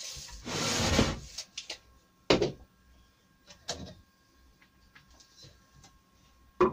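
Steel tape measure retracting with a brief rushing zip that ends in a snap, followed by a few sharp knocks of tools being set down on a wooden workbench, the last one near the end.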